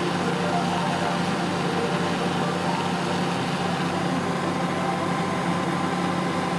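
Homemade petrol-vapour gas torch burning steadily with a hissing flame during brazing, over a steady mechanical hum with a fast, even pulse.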